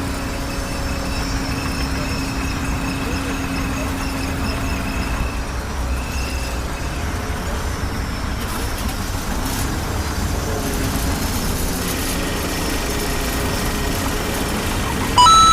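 Steady low rumble of a running engine, with a faint steady hum and a higher whine over it. A short, sharp high tone near the end.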